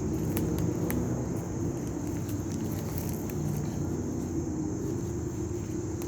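Outdoor ambience: a steady low rumble, like distant traffic, under a constant high insect drone, with a few faint clicks.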